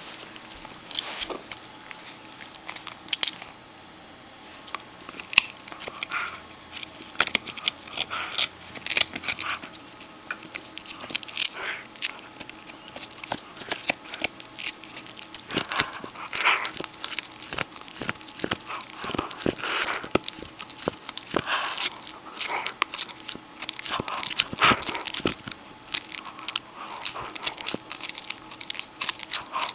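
A sable Shetland Sheepdog puppy gnawing a large rawhide chew close up: irregular sharp crunches and clicks of teeth on hide, coming in clusters with short pauses.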